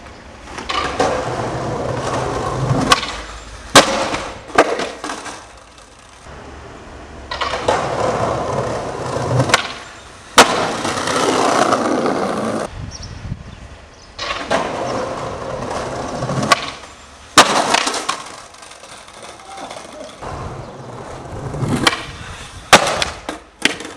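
Skateboard wheels rolling over tiled paving in several stretches of a few seconds each, broken by sharp cracks and clacks of the board hitting the ground. The last stretch ends in a quick cluster of impacts.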